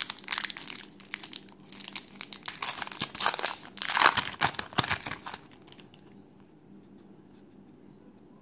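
Foil trading-card pack wrapper being torn open and crinkled as the cards are pulled out. The crinkling is loudest about four seconds in and stops about five and a half seconds in.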